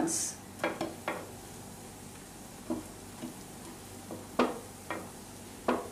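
Halved burger buns set down cut side first on an oiled non-stick tava, giving a scatter of soft taps and knocks over a faint sizzle of hot oil as the insides start to toast.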